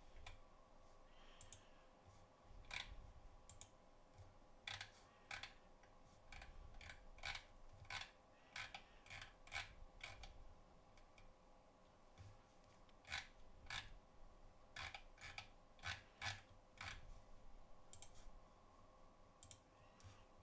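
Computer mouse clicking: about twenty short, sharp clicks at irregular intervals, some in quick runs, over a faint steady hum.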